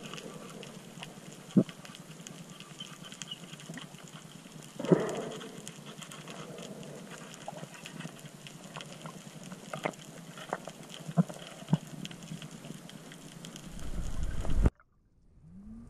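Underwater sound picked up through an action camera's housing: a steady hiss with scattered sharp clicks and a few louder knocks. Near the end a low rumble swells, then cuts off suddenly.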